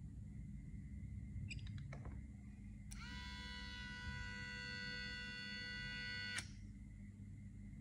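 Small brushed DC motor starting up with a brief rising whine, then running at a steady pitch for about three seconds before cutting off abruptly with a click. A few light clicks come just before it starts.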